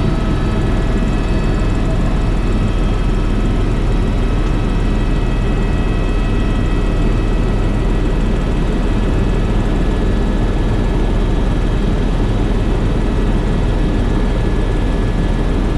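Helicopter in flight, heard from inside the cabin: a steady, loud drone with a few thin, steady high-pitched whines over it.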